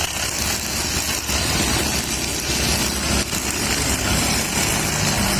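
Petrol brush cutter (grass trimmer) fitted with nylon trimmer line, its small engine running steadily, with a loud high hiss over the engine note.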